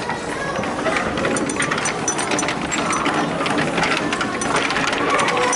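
Steady din of a busy indoor play area: faint children's voices and shouts over constant clattering, with many small clicks and rustles close to the microphone.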